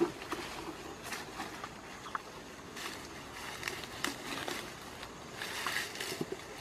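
Rustling of grass and leafy undergrowth as a person steps through and handles it, with scattered small snaps and crackles.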